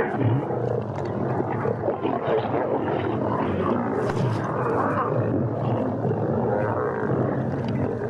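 A pride of lions growling and snarling continuously as they compete for places at a zebra carcass while feeding.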